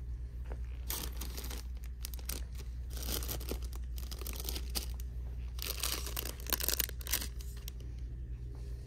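Clear plastic packaging crinkling in several rustling bursts as it is handled and squeezed, loudest about six to seven seconds in. A steady low hum runs underneath.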